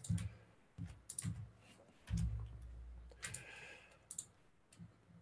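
Scattered clicks and taps on a computer mouse and keyboard, with a low thump a little after two seconds in.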